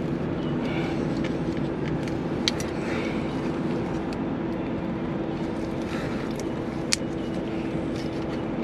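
Steady low hum of shop background noise, with a couple of brief sharp clicks as the crank sensor and its bolt are handled and fitted by hand.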